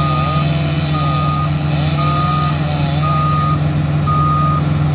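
Compact ride-on loader's engine running steadily while its reversing alarm beeps five times, about one beep a second, with a wavering whine under the first few beeps.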